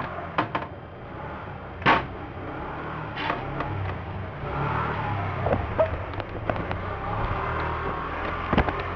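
Handling noise: scattered clicks and knocks from hands moving the opened receiver and its power cable, the loudest about two seconds in, over a steady low rumble.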